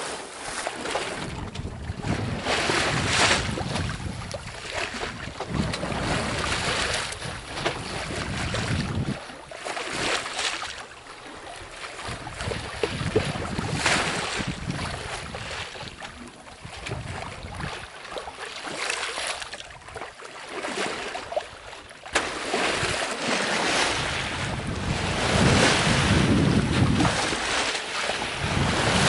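Sea water rushing and splashing past a sailboat under way in open ocean, with wind buffeting the microphone. The wash swells and eases irregularly every few seconds as waves pass.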